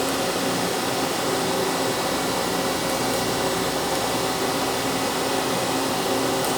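CNC machine running steadily: an even whirring machine noise with several faint steady tones, unchanging throughout.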